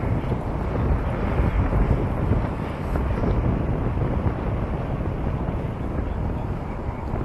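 Wind buffeting the microphone of a camera riding on a moving bicycle: a steady, loud, low rumble.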